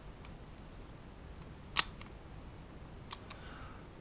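ABUS 83MAR/45 Mariner padlock and its key being handled: one sharp metallic click about two seconds in, then a couple of faint clicks.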